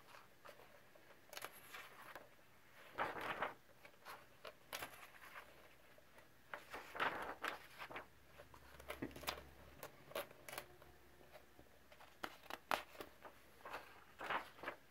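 Pages of a paperback coloring book being turned one after another: a series of short paper rustles and swishes, with quiet gaps between them.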